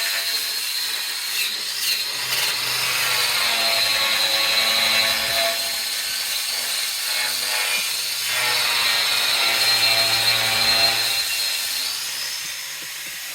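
Power tool scouring the old mine wagon during its clean-up: a steady abrasive noise with a high whine, easing off near the end.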